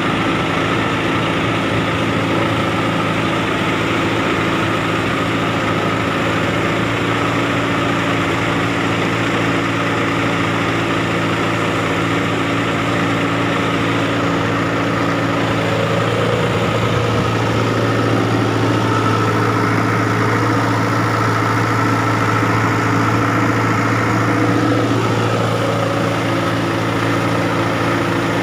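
Engine of the 85-horsepower NH Dabung tractor running steadily under load while it drags a puddler through a flooded rice paddy (puddling, 'kaddu'). The engine note shifts slightly a little past the middle.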